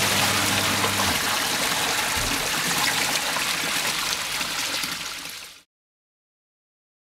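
Water gushing out of a stainless-steel cow footbath through its full-width pneumatic drain flap as the bath empties, a steady rushing pour. A low hum underneath stops about a second in, and the pour fades and cuts off after about five and a half seconds.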